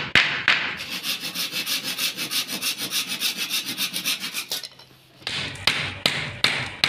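Hand saw cutting through a thin wooden batten in fast, even back-and-forth strokes for about four seconds. After a short pause, a hammer knocking on the wooden frame, two or three blows a second.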